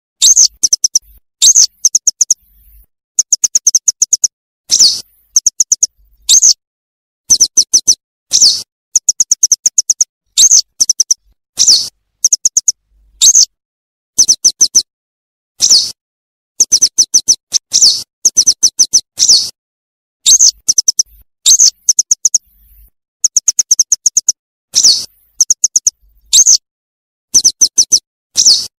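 Yellow wagtail calls played as a hunting lure, looped: quick runs of several short high notes alternate with single longer slurred call notes, repeating every second or two with short silent gaps.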